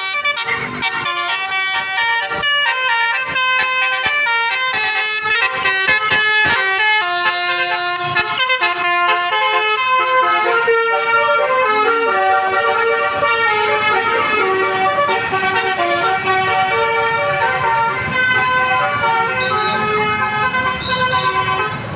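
Bus telolet horn, a multi-tone musical horn, playing a loud tune of stepping notes. The notes come short and fast with clicks between them in the first half, then are held longer in the second half.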